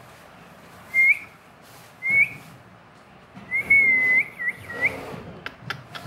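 Indian ringneck parakeet whistling: two short upward-flicking whistles about a second apart, then a longer held whistle that ends in a few quick dipping notes. A few sharp clicks follow near the end.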